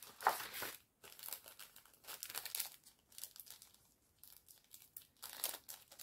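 Plastic packaging of craft cutting dies crinkling and rustling as it is handled and opened, in short irregular bursts.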